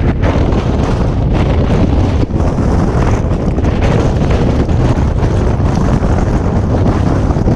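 Hurricane Michael's wind blowing hard and buffeting the microphone: a loud, unbroken rush with a heavy low rumble.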